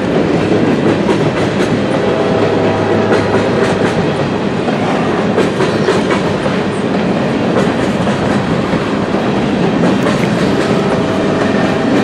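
Freight train cars rolling past: a steady rumble of steel wheels on the rails with the clickety-clack of wheels over rail joints, from covered hoppers and boxcars.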